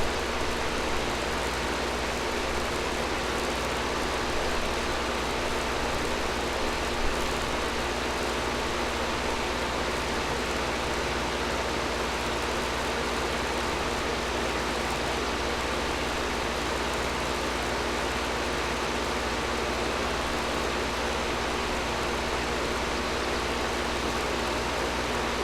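Air conditioner running steadily: a constant rush of air over a low, even hum.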